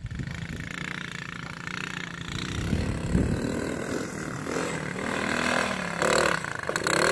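Engine of a 110cc automatic ATV running under way, getting somewhat louder partway through.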